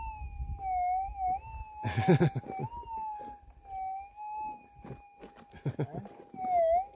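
Gold-prospecting metal detector sounding a steady hum that wavers and dips in pitch as the coil sweeps over a deep target. A short, loud scuffing noise comes about two seconds in, and a few knocks follow later.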